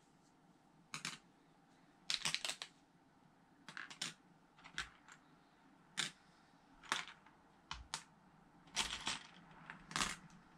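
Loose Lego plastic pieces clicking and clattering as they are handled, picked from a pile and set down on a table: irregular sharp clicks, sometimes a few in quick succession.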